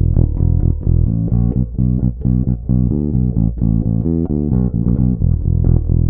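Fender Player Series Precision Bass played fingerstyle: a busy line of quick plucked notes, recorded direct into an audio interface with no pedals or compression.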